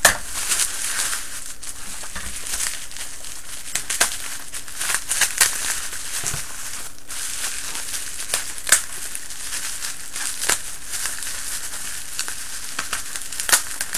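Packaging crinkling and rustling as a small package is unwrapped by hand, with scattered sharp crackles and clicks.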